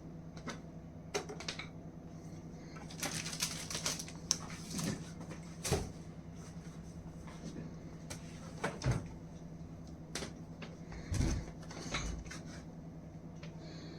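Handling sounds: scattered clicks, a few dull knocks and bursts of rustling, over a steady low hum.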